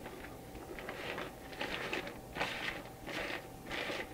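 Summer sausage casing rustling and crinkling in the hands as it fills with ground meat on the grinder's stuffing tube, in soft irregular swishes over a faint steady hum.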